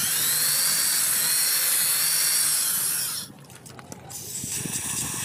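Electric hand drill with a 6.5 mm bit running in a bolt hole in an aluminium motorcycle cylinder head, cutting out the stripped threads. The motor whine rises as it spins up and winds down when it stops about three seconds in.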